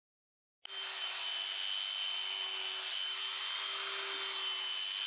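Electric sheep shears running steadily as they clip through a sheep's fleece. The sound cuts in suddenly about half a second in: a constant high whine with a lower hum under a steady hiss.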